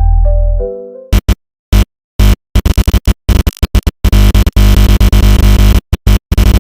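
Electronic music. A descending run of synth notes over heavy bass fades out about a second in, then loud, choppy stuttering bursts are cut by sudden silences.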